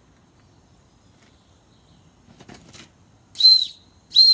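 Steam whistle on a model steam fire engine blown in two short, high-pitched toots with steam hiss around them, the first about three and a half seconds in and the second right at the end.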